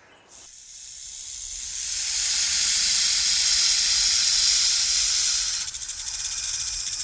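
A loud animal hiss that swells over about two seconds, holds steady, then breaks into a fast fluttering hiss near the end.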